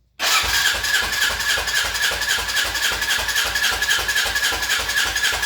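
Electric starter cranking the 1986 Suzuki Intruder 700's V-twin with the spark plugs out for a compression test. It starts suddenly and runs with a steady whine and an even pulse of about four or five compression strokes a second; the gauge then reads about 175, good compression.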